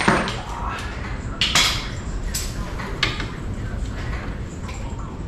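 Metal hand tools and suspension parts clinking and clanking in a few short, sharp knocks while work goes on at a car's front steering knuckle, over a steady low hum.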